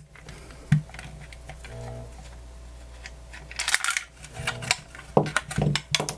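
Small clicks and knocks of a screwdriver and plastic radio parts being handled, with a denser clatter about two-thirds of the way through and a few more knocks near the end.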